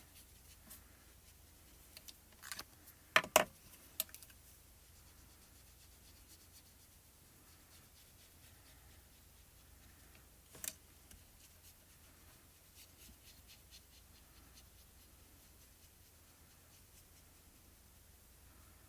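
Watercolor marker tip scratching faintly on card stock as colour is laid down, with a few sharp clicks, the loudest about three seconds in and another near the middle.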